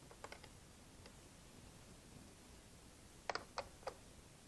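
Light clicks and taps of multimeter test leads and clips being handled at a motorcycle battery, with three sharper clicks about three seconds in.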